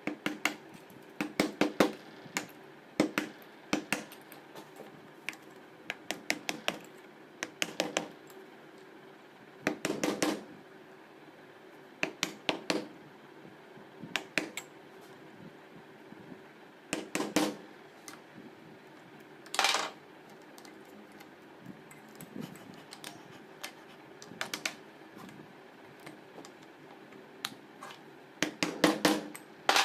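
A steel screwdriver clicking and scraping against the slip rings and shaft of an alternator rotor held in a vise, prying the slip ring off. The sharp metallic clicks come in short clusters every few seconds, with one longer scrape about two-thirds of the way through.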